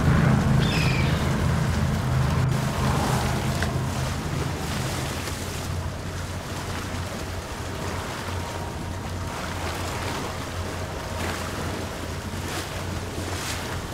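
Twin outboard engines of an RNLI Atlantic 85 lifeboat running, loud for the first few seconds and then easing to a quieter steady low hum as the boat slows alongside a yacht. Wind on the microphone and choppy water are heard throughout.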